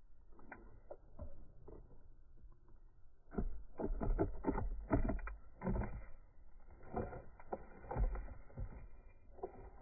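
Irregular soft knocks and taps of a plastic toy horse's hooves being walked across dirt, a few faint ones at first, then a dense run through the middle seconds.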